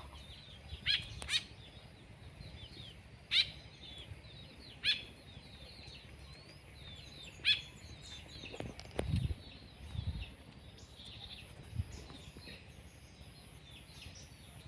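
Pet songbirds chirping: a handful of sharp, short calls that slide downward in pitch stand out over softer, continuous twittering. A few dull low thumps come about nine to ten seconds in.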